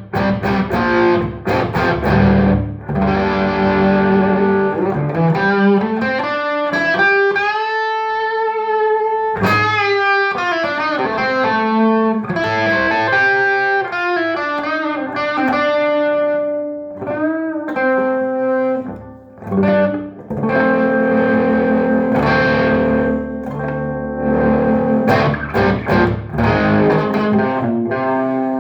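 Electric guitar with humbucker pickups played straight into a Trace Elliot Trident valve combo with 6L6 power valves, no pedals, recorded on a phone. Sustained single notes with a long upward bend about a quarter of the way in and a quick slide down just after, then ringing chords toward the end.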